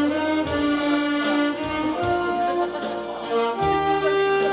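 Two alto saxophones playing a slow melody in held notes over a recorded backing track with bass and a steady beat.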